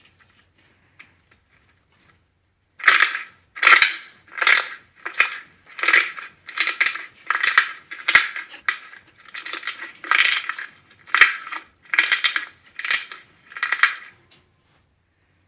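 Slime being squeezed and pressed by hand: about fifteen squishes at a steady pace, a little over one a second, starting about three seconds in and stopping shortly before the end.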